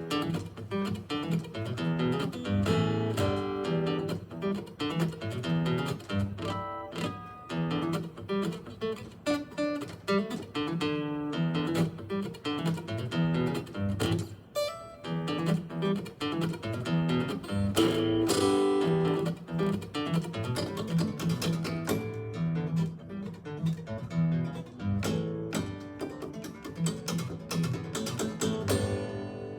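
Solo acoustic guitar played fingerstyle, with fast plucked melody, strummed chords and sharp percussive hits on the strings. It fades out at the very end.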